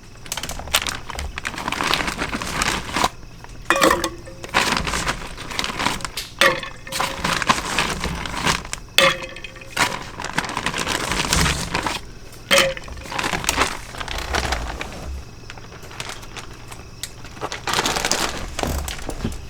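Irregular crinkling and crunching handling noises, with a few short clinks in the middle.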